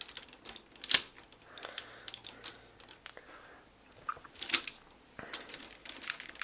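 Plastic action-figure toy being handled and posed: scattered clicks and taps of plastic parts, the sharpest about a second in.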